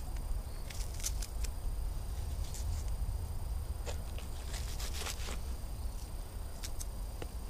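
Pine wood campfire crackling, with scattered sharp pops over a low steady rumble.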